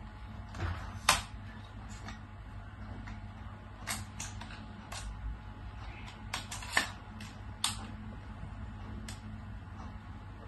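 Tripod leg-lock clips snapping open and shut as the legs are extended: about ten sharp clicks at irregular intervals, the loudest about a second in.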